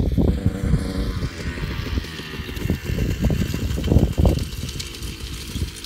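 A two-stroke KTM 144 SX dirt bike fitted with an FMF Shorty silencer, revving off in the distance. Irregular gusts of wind buffet the microphone and are the loudest sound.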